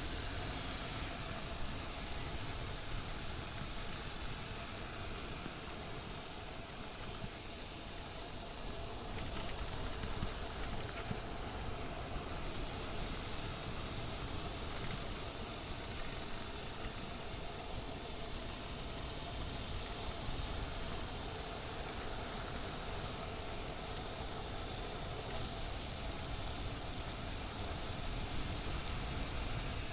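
Motorcycle riding at a steady pace: the engine running under a constant rush of wind noise on the microphone.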